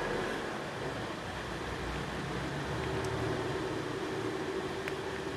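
Steady background hum and hiss, with a constant low tone and no speech.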